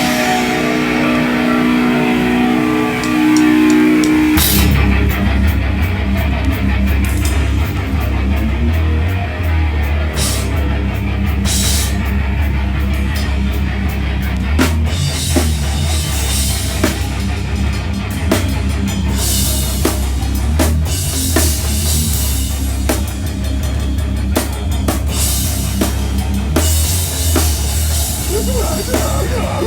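Live heavy band playing loud: guitar chords ring out for about four seconds, then drums and bass come in together and the full band plays on with heavy drums and crashing cymbals.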